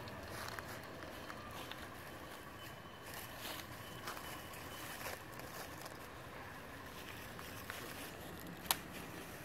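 Faint outdoor background with scattered small clicks and rustles and a faint steady hum. There is one sharp click near the end.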